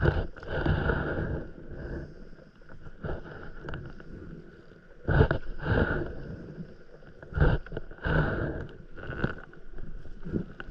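Stand-up paddleboard paddle strokes: the blade dipping into calm sea water and pulling through with a splashing swish about every second or two. The sharpest splashes come about five and seven and a half seconds in.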